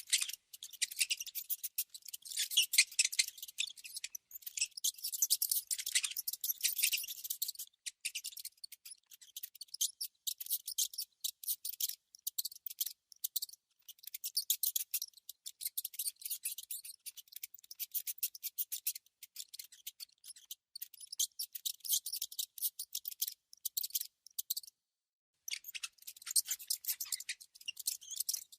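A mouse scratching and gnawing: rapid runs of dry, high clicking scratches in quick bursts, with a short break near the end.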